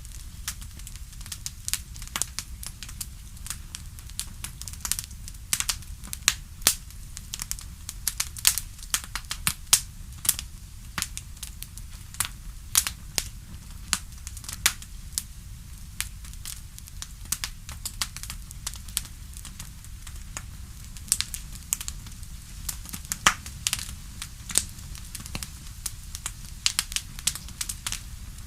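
Crackling wood fire: irregular sharp pops and snaps, several a second, over a steady low rumble of the flames.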